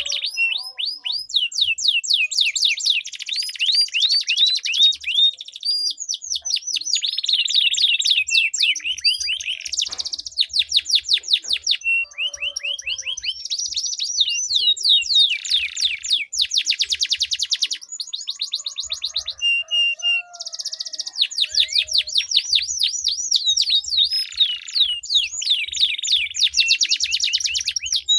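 Domestic canaries singing in long rolling trills: rapid runs of repeated high notes strung together with only brief breaks.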